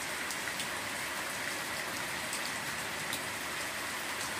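Steady hiss with a few faint, scattered ticks.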